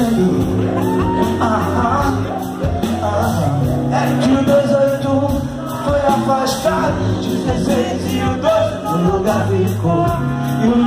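Rock band playing live, with electric guitars and drums, and voices singing and shouting over the music.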